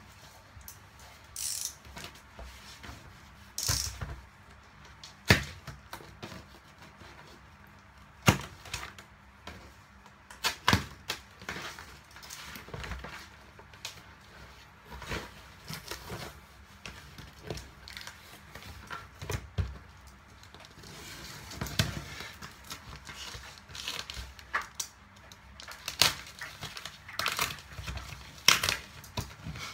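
A cardboard shipping box being handled and opened by hand: scattered knocks, taps and clicks on the cardboard, with a longer stretch of scraping about two-thirds through as the packing tape is cut and torn.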